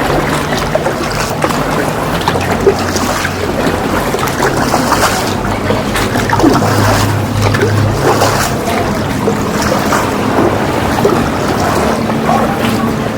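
Boat engine running steadily with a low hum, over rushing wind on the microphone and water noise.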